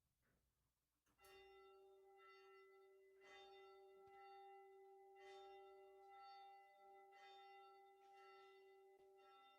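A bell struck repeatedly, about once a second, starting about a second in; each strike rings on and overlaps the next. It is faint.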